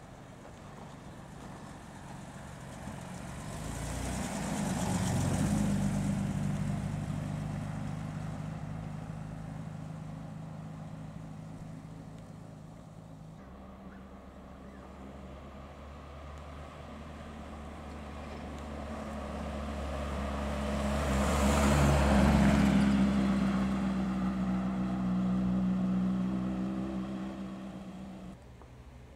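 Two classic cars drive past one after the other. First a Jaguar E-Type roadster's straight-six, its engine note swelling to a peak about five seconds in and then fading. Then a Morris Minor pickup's four-cylinder engine, growing louder to a peak a little over twenty seconds in and fading as it goes by.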